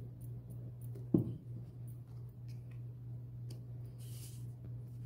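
A plastic glue bottle set down on the table with a single thump about a second in. A brief rustle of paper cutouts follows as they are pressed onto the wreath, over a steady low hum.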